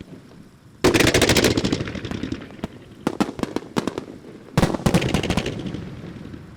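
Starmine fireworks barrage: a dense rapid volley of shell bursts about a second in, another about four and a half seconds in, each trailing off into crackle, with scattered single bangs between.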